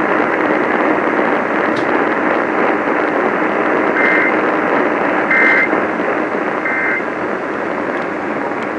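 Steady hiss of a radio receiver on a weak signal. In the middle come three short two-tone data bursts, a little over a second apart: the SAME end-of-message code that closes an Emergency Alert System warning.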